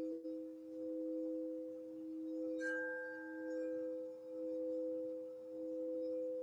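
Crystal singing bowls ringing: two bowls hold steady, overlapping tones that swell and fade in loudness every second or so. About two and a half seconds in, a light strike adds a brief, higher ring.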